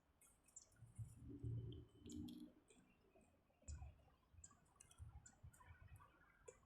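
Near silence with faint scattered clicks and a few soft low sounds.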